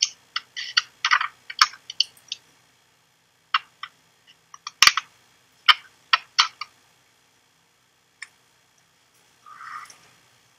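Typing on a computer keyboard: irregular runs of sharp key clicks, pausing about two seconds in, resuming, then stopping a little past halfway.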